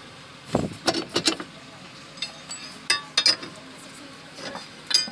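Sharp metallic clinks and knocks of hand tools against car parts, in three short clusters, the first opening with a dull thump.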